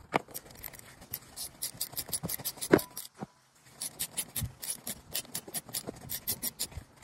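Hand ratchet clicking in quick runs of several clicks a second as a screw is backed out, with a pause near the middle and one louder knock about two and a half seconds in.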